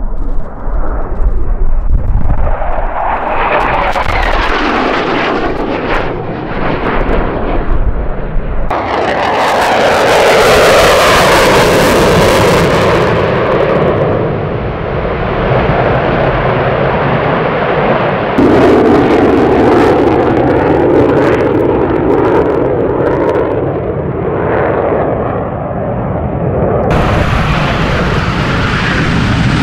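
Loud jet engine noise from military fighter jets in a run of separate clips: low, fast passes, one with afterburners lit, and a takeoff near the end. The sound shifts abruptly at each cut, with the pitch of each pass sliding as the jet goes by.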